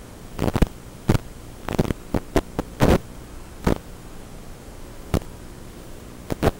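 Audio from an analog FPV video link: a steady electrical hum broken by about a dozen sharp crackles of static, some single and some in quick clusters, the interference noise of the radio video signal.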